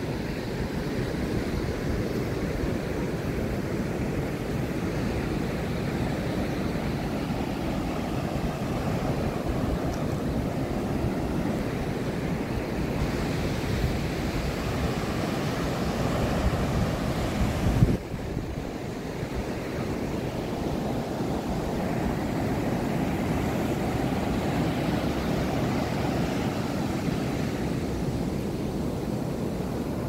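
Surf breaking on a sandy beach, a steady wash of waves, with wind buffeting the microphone. A short bump about two-thirds of the way through, after which the sound drops a little for a moment.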